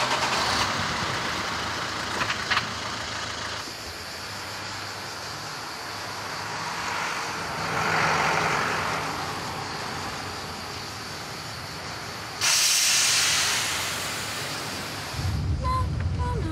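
Street traffic noise, with a vehicle passing and swelling about halfway through. Near the end a loud hiss starts abruptly and lasts about two seconds, and then music comes in with a low beat.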